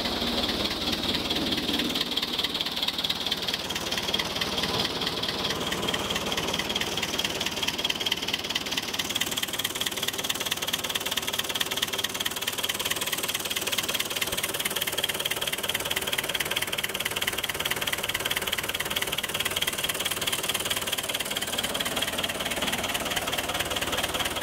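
Fordson Power Major tractor's four-cylinder diesel engine idling steadily, heard close up, with a fast even firing beat.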